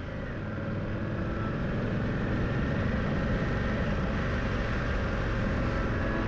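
Motorcycle riding along a road, its engine and road and wind noise picked up by a camera mounted on the windscreen; the sound grows louder over the first two seconds, then holds steady.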